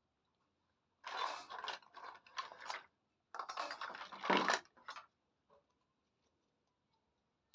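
A miniature toy kitchen set being handled: quick clicking and rustling in two spells of about two seconds each.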